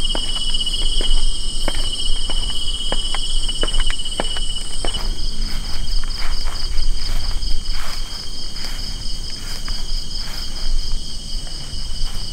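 A dense chorus of tropical insects keeps up several shrill buzzing tones, and their pattern shifts about five seconds in. Sharp clicks of footsteps on a hard, littered floor come through it, most of them in the first half.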